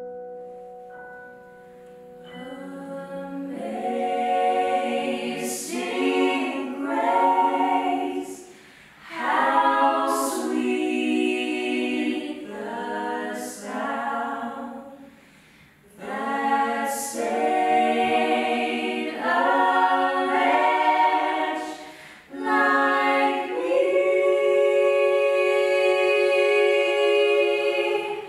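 A gospel vocal group singing a cappella in harmony, in sung phrases with short breaks between them. A piano chord dies away as the singing comes in.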